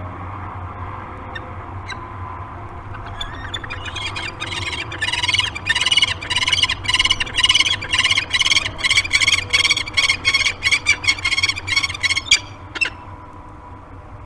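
Peregrine falcon pair calling during copulation: a rapid, loud chittering series at about four calls a second that builds over a few seconds and cuts off suddenly near the end. A steady low hum runs underneath.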